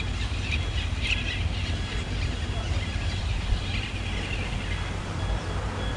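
Birds chirping a few times over a steady low outdoor rumble.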